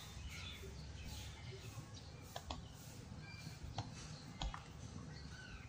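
A few faint, sharp clicks of a metal spoon against a bowl as a spoonful of ground seasoning is tipped in, with faint bird chirps in the background.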